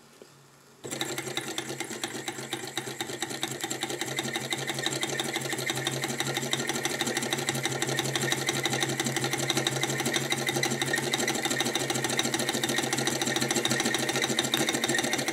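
Mini hot-air Stirling engine, heated by an alcohol burner, running with a fast, even mechanical clatter. It starts about a second in and grows louder over the next few seconds before settling steady.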